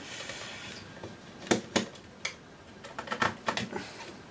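Screwdriver and screws clicking and tapping against a metal avionics module as its retaining screws are undone: two sharp clicks in the first half, then a quick flurry of small clicks near three seconds in.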